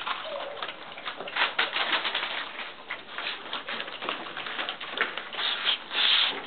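Puppies scrabbling about on newspaper spread over the floor: crinkling paper and many quick ticks and taps from their claws.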